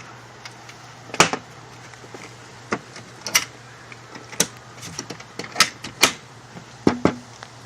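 A series of sharp knocks and clicks at irregular intervals, about a dozen in all, over a faint steady low hum.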